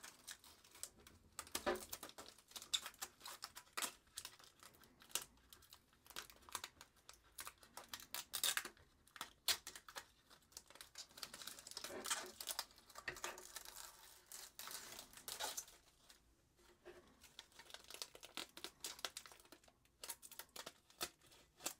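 Clear protective plastic film being peeled off a new graphics card, crinkling and crackling in an irregular run of small crackles.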